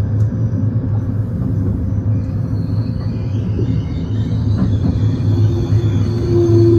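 Intercity Notte sleeper train running on the rails, a steady low rumble. Near the end a steady tone joins in and grows louder.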